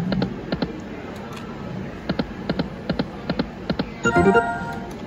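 Lock It Link video slot machine spinning: a string of sharp electronic ticks as the reels spin and land, followed a little after 4 s by a short stepped electronic chime.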